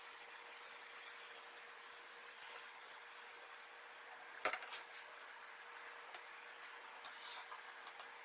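Small slotted metal screws being turned with a screwdriver into a wooden sword handle, squeaking in short high chirps about three times a second as they bite into the wood, with one sharp click about halfway.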